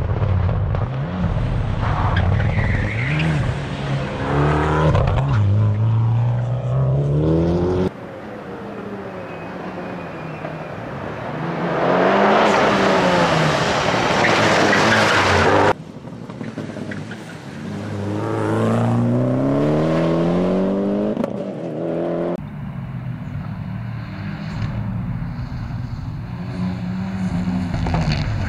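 Mitsubishi Lancer Evolution X's turbocharged four-cylinder engine driven hard on a tight course, its pitch repeatedly climbing under acceleration and dropping off through gear changes and braking. A loud rush of tyre noise runs through the middle as the car slides close past.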